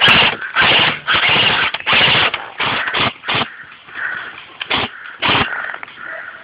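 Airsoft gun firing on full auto in about ten short bursts, packed close together through the first few seconds, then two more a couple of seconds later.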